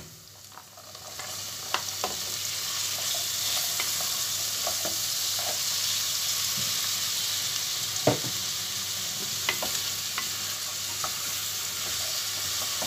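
Parboiled borlotti beans hitting a hot stainless steel pan of fried mince, onion and pepper paste: the frying sizzle builds about a second in and then holds steady. A wooden spoon stirs through it, knocking the pan now and then.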